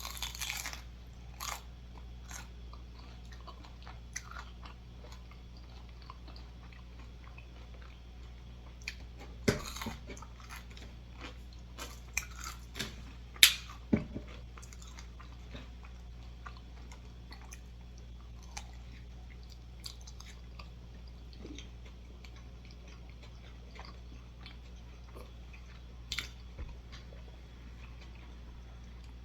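A person chewing and biting food close to the microphone, with scattered crunchy clicks; the loudest bites come about ten and fourteen seconds in. A steady low hum runs underneath.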